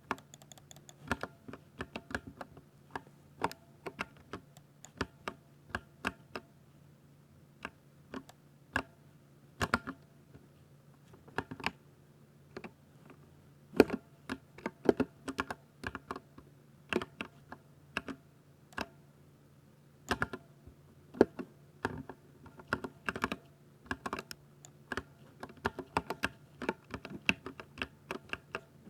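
Typing on a Ducky 60% mechanical keyboard with silver linear switches: irregular runs of key clicks and clacks with short pauses, a few strokes much louder than the rest.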